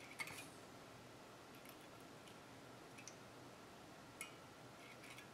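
A few faint, scattered clicks of needle-nose pliers working the metal contact springs in a plastic earmuff battery compartment, bending them out longer so they press harder on the batteries, where the fault is suspected.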